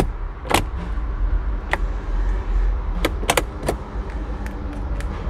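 Scattered sharp clicks and light knocks, about eight in all, from handling the key and controls inside a 2010 Mercedes-Benz R350, over a steady low rumble. No starter or engine sound follows: the flood-damaged car does not crank.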